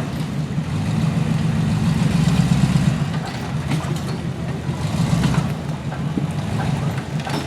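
A vehicle engine running at low speed, swelling a little about two seconds in and easing off again about a second later.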